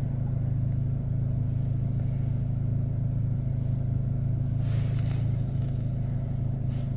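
Car engine idling, heard as a steady low drone from inside the cabin.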